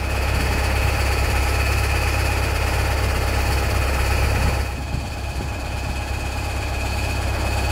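Construction machinery engine running steadily, with a deep hum and a faint high whine; it eases off a little about two-thirds of the way through.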